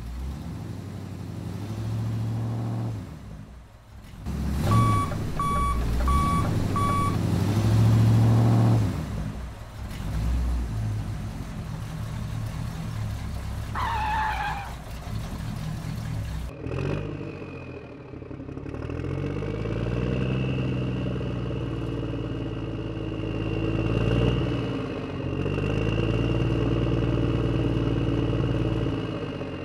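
Toy vehicle engine sounds running with no speech, with four short beeps about five seconds in and a brief sliding tone about halfway. From a little past halfway a steady high whine sits over a low engine hum that rises and falls.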